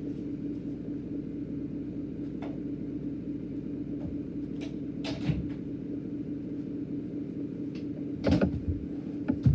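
A door being closed: scattered knocks and clicks of handling, with the loudest clatter about eight seconds in, over a steady low hum.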